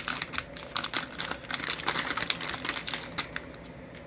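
Plastic toy packaging being handled and opened by hand: a quick run of small clicks and crinkles that thins out near the end.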